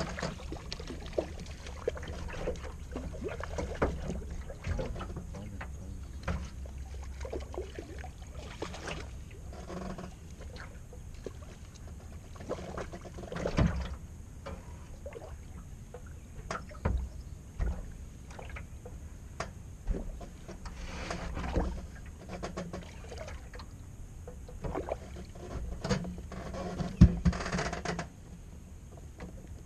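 Knocks, bumps and clicks of a small boat and fishing gear being handled as an angler fights a largemouth bass on a spinning rod and lifts it aboard, over a low steady rumble. A sharp knock about 27 seconds in is the loudest.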